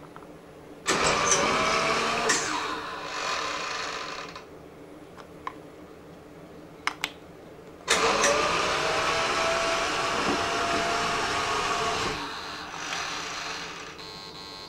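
Roomba 4110 robot vacuum's motors starting up twice, each run a few seconds long with a whine that rises as they spin up, separated by a few clicks. The robot is trying to drive forward and stopping short each time, a fault the owner blames on its drive wheels.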